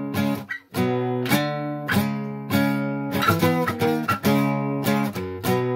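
Outro music: strummed acoustic guitar, chord after chord in a steady rhythm.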